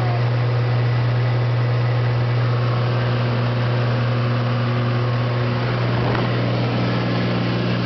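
The 2006 Cessna 182T's six-cylinder Lycoming IO-540 engine and propeller droning steadily during the climb-out after takeoff, heard from inside the cabin. About six seconds in, some of the higher tones in the drone shift slightly while the deep main tone holds.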